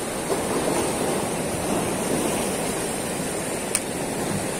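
Sea surf washing and breaking over shoreline rocks, a steady rushing noise. A single sharp click sounds about three-quarters of the way through.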